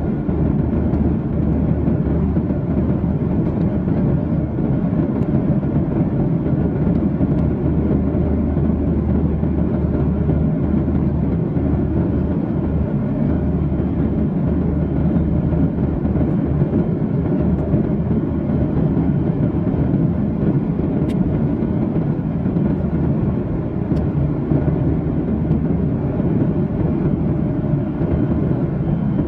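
Steady cabin drone inside a Boeing 737-800, its CFM56-7B jet engines and airflow making an even, low rushing noise.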